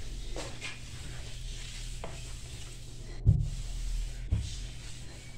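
A cloth wiping over a granite countertop, with faint scuffing and two dull knocks about three and four seconds in.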